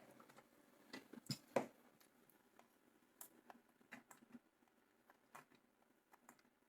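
Near silence broken by a few faint, sharp clicks and taps from small tools being handled on an amplifier circuit board. A short cluster of them comes about a second and a half in, and single ticks are scattered after.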